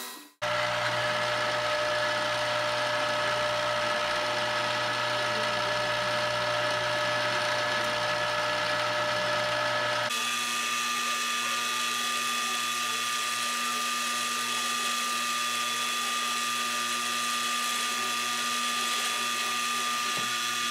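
A shop power tool running steadily with a constant hum and whine. About ten seconds in the hum abruptly changes pitch.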